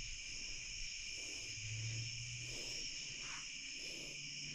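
Steady chorus of night insects, crickets among them: a continuous high, even trilling. Faint soft rustles come about once a second.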